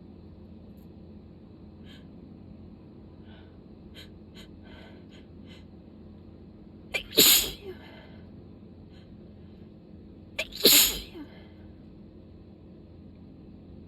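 A person sneezing twice, about three and a half seconds apart, during a sudden sneezing fit. Both sneezes are loud and abrupt.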